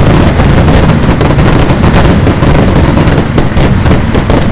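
Vedikettu fireworks going off in a dense, unbroken barrage. The explosions follow so fast that they merge into one continuous, very loud rumble of bangs.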